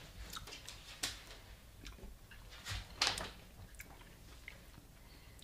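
Quiet mouth sounds of people eating a sticky chocolate hazelnut spread off a spoon and a lid: a few soft smacks and clicks, the loudest a brief one about three seconds in.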